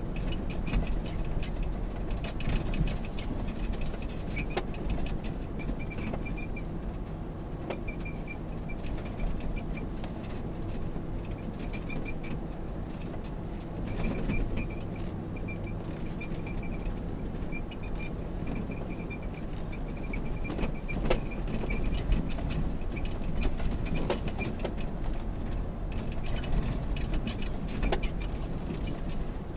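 Lexus GX460 driving over rutted beach sand, heard from inside the cabin: a steady low rumble from engine and tyres, with frequent small rattles, clicks and squeaks from the body and interior as it rides over the bumps.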